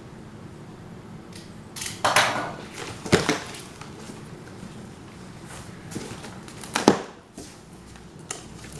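Cardboard shipping box being opened and its contents handled: scattered rustling and scraping with a few sharp knocks, the loudest about seven seconds in.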